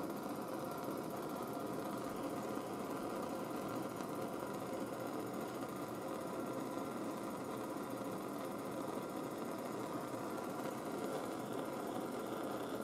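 Propane torch flame burning steadily, held on heat-shrink crimp connectors to shrink them.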